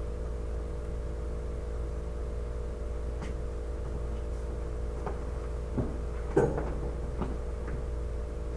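A few light knocks and clicks of objects being handled, the loudest about six and a half seconds in, over a steady electrical hum.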